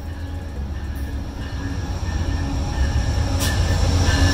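Amtrak GE Genesis diesel locomotive and its passenger cars approaching and passing at close range, the engine's low rumble growing steadily louder.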